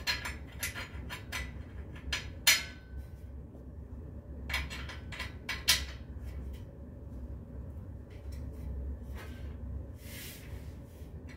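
Steel bed-frame rails and screws clinking and knocking as the parts are handled and fitted together: a run of sharp metallic clicks, the loudest about two and a half seconds in and another cluster around five seconds in, then a brief rustle near the end.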